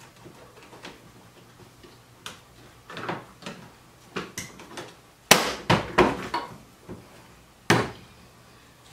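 A 2002 Mazda Miata's interior trim pieces being handled and fitted back into place: scattered clicks and knocks, with a few louder sharp knocks from about five seconds in and one more near the end.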